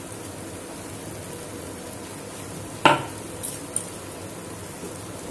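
Coconut-and-sugar mixture sizzling steadily in an aluminium kadai, nearly cooked down to the thick stage. About three seconds in there is one sharp metal clink.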